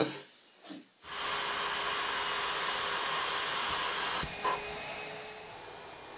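A loud, steady rushing hiss starts abruptly about a second in. It drops sharply with a click about four seconds in, then carries on more quietly.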